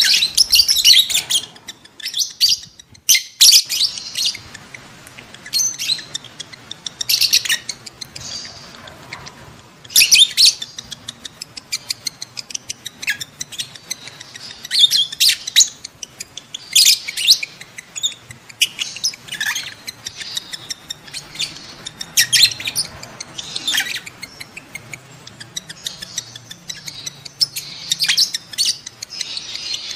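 Lovebirds calling in bursts of rapid, high-pitched chirps every second or two: the excited calls of birds in breeding condition.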